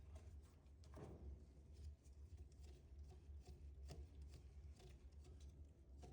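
Near silence: a low steady hum with a few faint scattered taps and clicks.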